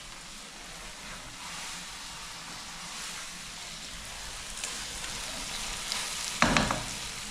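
Chicken curry's onion-tomato base sizzling in a pan on the stove, a steady hiss. A short loud knock near the end, with a smaller one a couple of seconds before.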